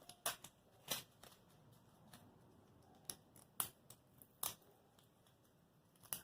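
Faint handling of an acupuncture needle's packaging: about six separate crisp clicks and crinkles of plastic and paper as a single needle with its guide tube is taken out.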